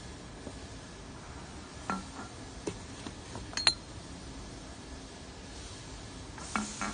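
Empty amber glass bottles clinking against each other in a cardboard carton as a labelled bottle is handled among them: a few separate clinks, the loudest a ringing glass chink a little over three and a half seconds in, with a few duller knocks near the end.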